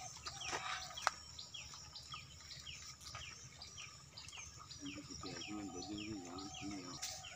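A small bird repeating a short falling chirp about twice a second, with one sharp click about a second in and a wavering lower call near the end.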